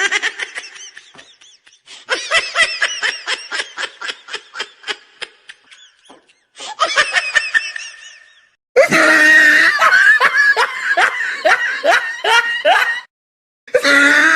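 A string of separate recorded laugh sound effects, each a run of quick rhythmic ha-ha pulses. They are cut apart by short silent gaps, a new laugh starting about 2 s, 6.5 s, 9 s and 13.5 s in, and the one from about 9 to 13 s is the loudest.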